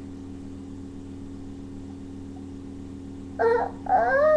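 A steady low hum made of several even tones, like electrical or appliance hum. About three and a half seconds in, a loud, high, drawn-out vocal sound starts, wavering in pitch.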